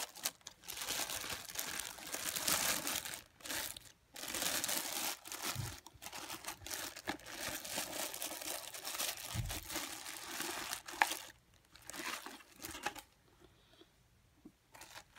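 Clear plastic wrapping crinkling and rustling in irregular bursts as a corded sander is handled and unwrapped, dying away near the end.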